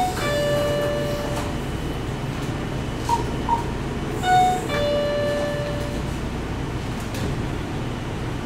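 Convenience store's electronic entry chime sounding a two-note ding-dong, a short higher note then a longer lower one, twice about four seconds apart, over a steady background hum. Two short beeps come just before the second chime.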